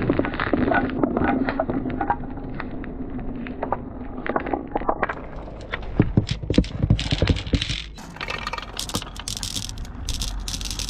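Many glass marbles rolling down a track together and clacking against each other, then single marbles knocking along a wooden rail. Near the end comes a run of bright glass clinks as marbles drop among others in a hanging basket.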